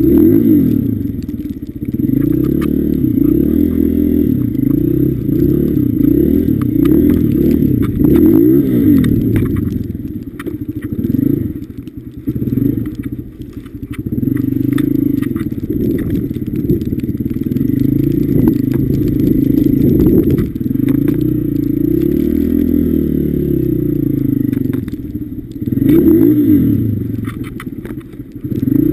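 Honda CRF150F dirt bike's single-cylinder four-stroke engine revving up and down as it rides through snow, its pitch rising and falling over and over, easing off briefly a few times.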